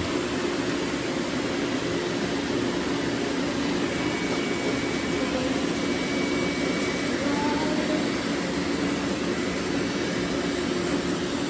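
Several robot vacuums running at once: a steady whir of suction fans and brushes with a few steady low hums.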